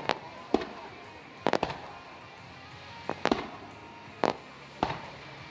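Aerial firework shells bursting, about eight sharp bangs at irregular intervals, some in quick pairs, each trailing off briefly.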